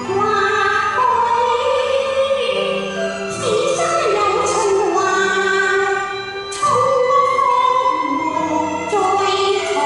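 A woman singing a Cantonese opera song into a microphone over instrumental accompaniment, holding long notes that slide between pitches. There is a short break in the line just after the middle.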